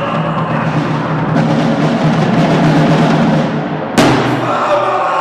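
Live band music: acoustic guitar with a drum kit, the cymbals thickening after about a second. The loud passage ends in one sharp crash about four seconds in.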